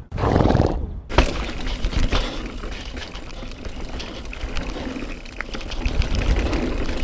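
Mountain bike riding fast down a dirt trail: tyres rolling over dirt and roots, with the bike rattling and ticking over bumps and wind rushing over the helmet-camera microphone.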